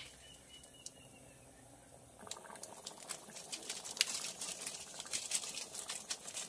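A pot of mung bean and sponge gourd soup boiling hard over a wood fire, bubbling and popping. The popping starts about two seconds in and grows busier.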